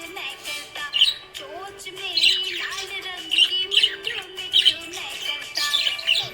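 Budgerigar chirping in a string of short, quick calls, about one or two a second, over background music with steady held notes.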